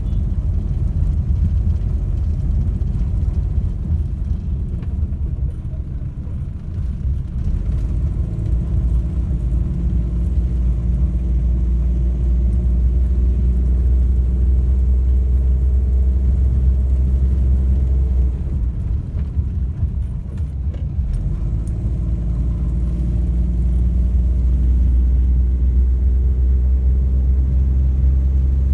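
A car being driven, heard from inside the cabin: a steady low engine and road rumble. It dips briefly about six seconds in and again near twenty seconds, and faint engine tones rise and fall with speed.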